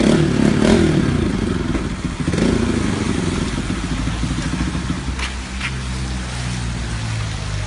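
Bajaj Pulsar NS200's single-cylinder engine revved in a few quick throttle blips, each falling straight back, then settling to a steady idle, through an exhaust drilled for a deeper sound.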